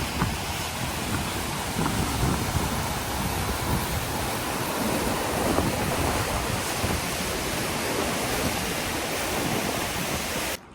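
Wind buffeting the microphone outdoors: a steady rushing noise with an uneven low rumble, which cuts off abruptly near the end.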